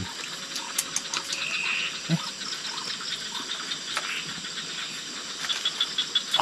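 Night chorus of tropical forest insects and frogs: steady high-pitched trilling and buzzing, with a run of quick chirps near the end. A few faint clicks and taps sound over it.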